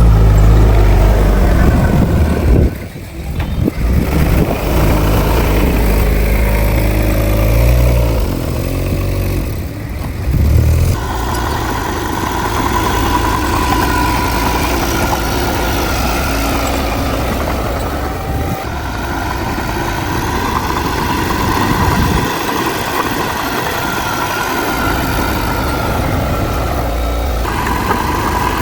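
Heavy diesel earthmoving machinery running: a loud low engine rumble for the first several seconds, then from about eleven seconds in a steadier engine note with a high whine.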